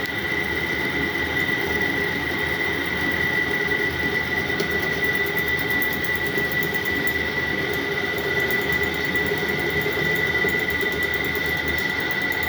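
Metal lathe turning a motor shaft, with a steady high-pitched squeal held over the machine's running noise.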